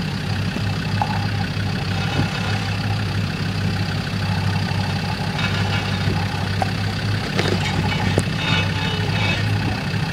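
Land Rover Discovery's engine idling steadily as the 4x4 crawls slowly down a rock ledge, with a few short clicks and rattles from the vehicle, which are normal on this car.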